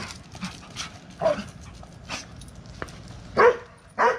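Dogs at play, giving a string of short barks and yips, the loudest about three and a half seconds in.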